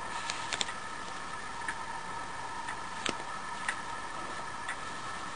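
Light, irregular clicks of small duralumin balls being handled and set one on top of another, over a faint steady high hum.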